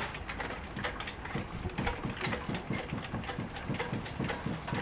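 Hot oil crackling and spitting in a turkey fryer pot as the fried turkey is hoisted out. From about a second and a half in, a rhythmic mechanical clicking, about five a second, runs under it from the lifting rig.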